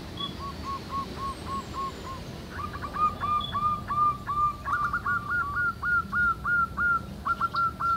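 Several zebra doves cooing in runs of short staccato coos. A faint run comes first, then louder runs from more than one bird overlap from about two and a half seconds in.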